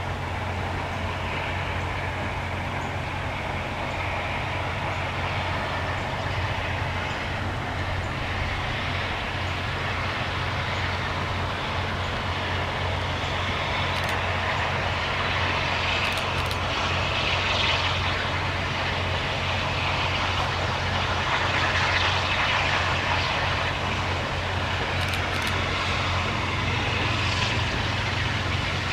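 A train running by: a steady low rumble with a hiss that swells and fades, and a few sharp clicks in the second half. No whistle is sounding.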